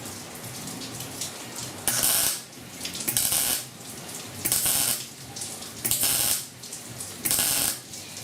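Wire-feed welder stitch welding thin sheet-metal body panel: five short bursts of sizzling arc crackle about every second and a half, the trigger pulled on and off to put down small tack welds.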